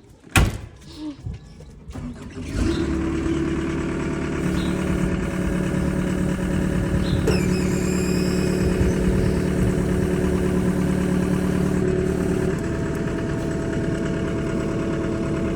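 Skid loader engine starting about two and a half seconds in, then running steadily, after the battery switch under the hood has been turned back on. A sharp click comes about half a second in.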